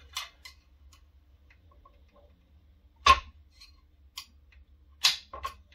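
A few sharp clicks and taps of a screwdriver prying bushings out of the metal side plates of a robot torso frame, the loudest about three seconds in.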